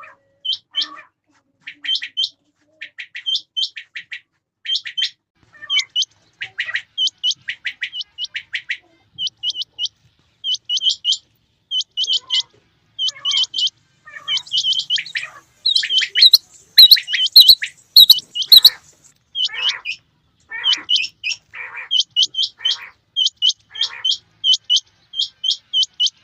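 Rain quail calling: short, high, clipped notes repeated in quick pairs and triplets, over and over, with lower, rougher notes mixed in. The calls are loudest in a dense burst about two-thirds of the way through.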